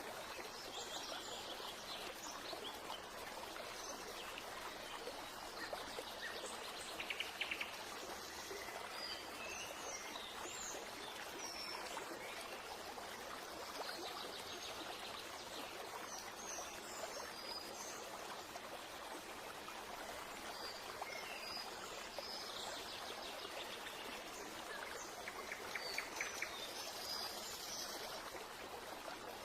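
Steady running stream with small birds chirping now and then.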